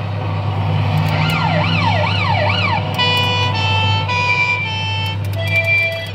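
Electronic sound effects from an Amutec Emergency Rescue kiddie ride's speaker. About a second in, a rapid rising-and-falling siren wail plays for about a second and a half. It is followed by a run of short electronic beeping tones stepping through a little tune, all over a steady low hum.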